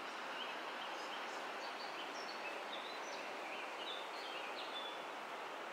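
Outdoor ambience: a steady rushing hiss with small birds chirping now and then.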